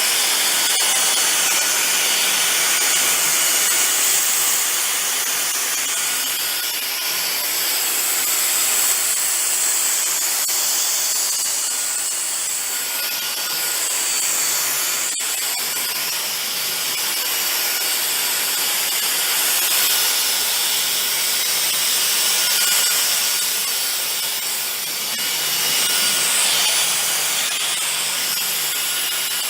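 Dyson DC44 cordless stick vacuum running steadily, a loud whooshing hiss of motor and airflow with a faint high whine, swelling a little now and then as it picks up rice and flour from a wooden floor. A single click about halfway through.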